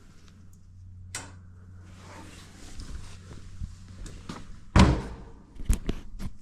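Scattered clicks and knocks of tools and washer panel parts being handled during disassembly, with one loud knock a little before five seconds, over a steady low hum.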